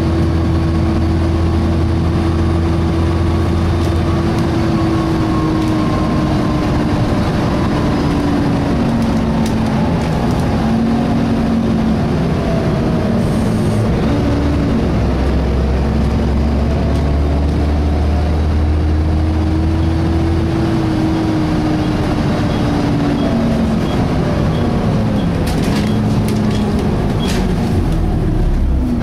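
Volvo B7TL bus's diesel engine and engine cooling fan running, heard from on board. There is a steady low hum and a tone that slowly falls and rises as engine speed changes, and a few clicks near the end.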